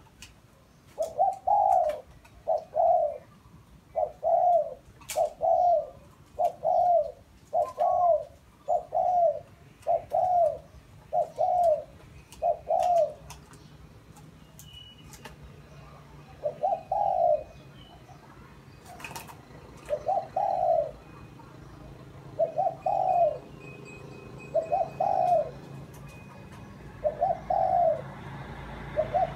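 Caged decoy dove cooing: a quick run of short repeated coos, then a pause, then single coos every two or three seconds. It is calling alone soon after being hung up, which the owner counts as a pass.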